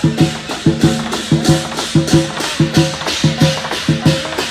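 Lion dance percussion: a large drum beaten in a steady rhythm of paired strokes, with cymbals clashing on the beats.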